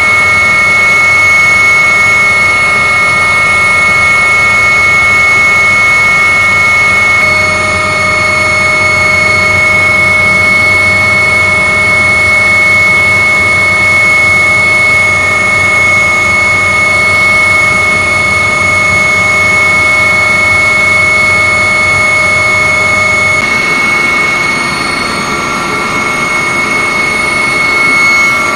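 Cabin noise inside an MH-139 Grey Wolf helicopter in flight: its twin turboshaft engines and rotor drive give a loud, steady whine of several high tones over a rushing drone. The sound shifts slightly about 23 seconds in.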